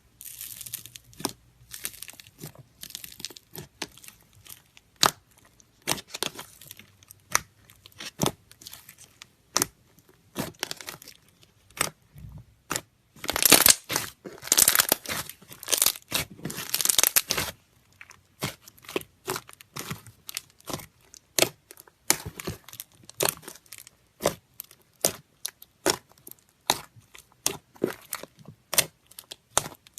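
Boba slime, with beads mixed through it, being squeezed and pressed by hand, making rapid crackling and popping clicks. There are louder, denser stretches of crunching about halfway through.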